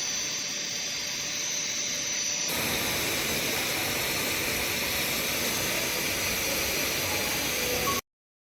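Steady hissing noise of an automatic orbital pipe-welding machine at work. The hiss shifts in tone about two and a half seconds in and cuts off abruptly near the end.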